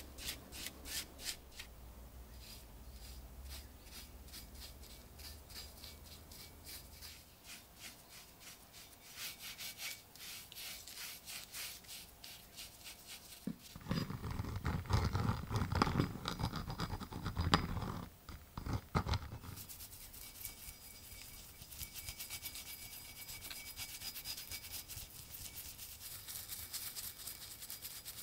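Small bristle brush scrubbing and dabbing liquid over the pitted steel of an old axe head, in quick runs of short scratchy strokes. About halfway through, a louder stretch of handling noise lasts some five seconds.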